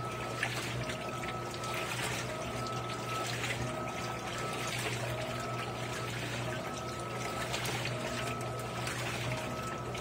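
Electrolux LAI17 top-load washing machine agitating towels in water during the rinse: a steady motor hum with a whine that cuts in and out about once a second as the wash plate turns back and forth, over water sloshing and splashing through the load.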